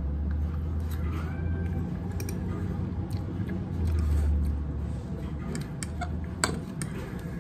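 A cat meowing faintly about a second in, over a low steady hum, with a few sharp clicks of a metal fork on a ceramic plate, the loudest one about six and a half seconds in.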